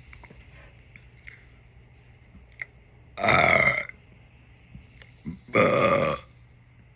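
A person letting out two loud, drawn-out burps brought up by drinking soda, each lasting most of a second and about two and a half seconds apart.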